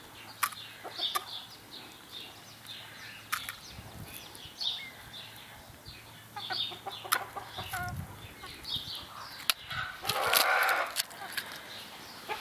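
Chicken clucking in short, repeated calls, with a loud flurry of wing flapping lasting about a second near the end.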